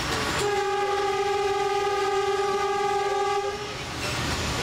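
The tourist train's horn sounding one long steady blast of about three seconds, over the low rumble of the narrow-gauge train running.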